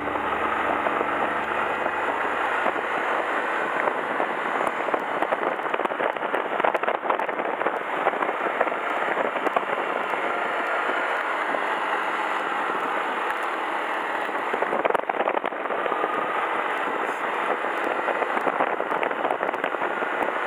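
Riding noise from a Yamaha Gear four-stroke scooter under way: a steady rush of wind and road noise with many small crackles, no engine tone standing out.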